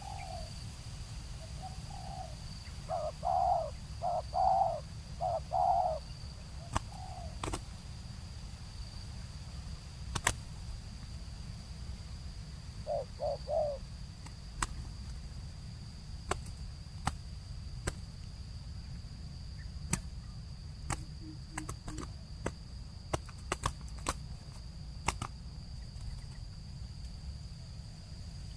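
Spotted dove cooing: a run of low coos in the first few seconds, then a short phrase of three quick coos about halfway through. Scattered sharp clicks and a steady high-pitched insect-like tone run underneath.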